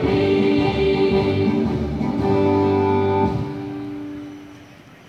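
The song's closing chord on an electronic keyboard played through a loudspeaker, held steady and then fading away over the last two seconds.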